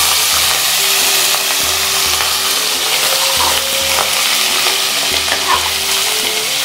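Mutton pieces and whole spices frying in hot oil in a pressure cooker: a loud, steady sizzle. A few clinks and scrapes come from a slotted metal spatula stirring the meat against the pot.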